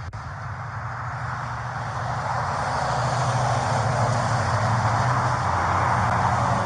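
Patrol car driving: a steady engine hum with road and wind noise that grows louder over the first three seconds and then holds. A short click right at the start.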